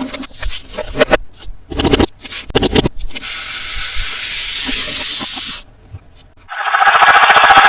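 Handling of plastic toy packaging: clicks and rustles, then a steady hiss that stops abruptly after about two and a half seconds. After a short pause, a loud, fast buzzing rattle starts near the end.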